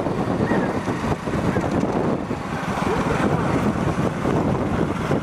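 Wind buffeting the microphone over a vehicle running at speed, a dense and wavering rush.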